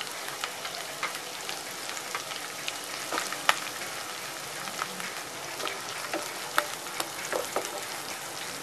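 Chopped spring onions sizzling in hot oil in a pan, an even hiss with many small sharp crackles. Near the end a wooden spatula starts stirring them through the oil.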